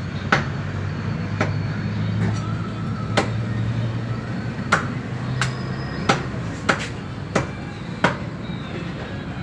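Meat cleaver chopping chicken on a wooden stump block: about nine sharp, irregularly spaced chops, over a steady low hum.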